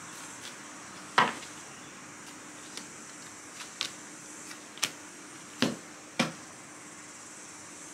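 Tarot cards being handled and shuffled: about six sharp clicks and taps, the loudest about a second in and twice close together near the end.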